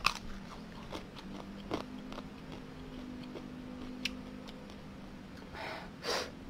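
Quiet mouth sounds of a man chewing a mouthful of spicy green papaya salad, with scattered small clicks, then a short rustle near the end as his fingers dig into the shredded papaya.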